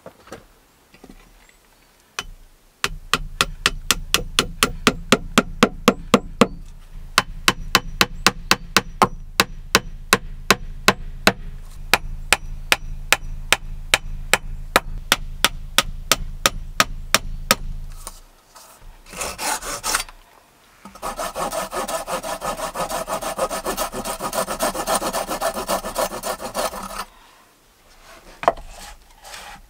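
Hand saw cutting through thin wooden poles: a long run of even strokes, about four a second, then after a short break a second, harsher stretch of sawing.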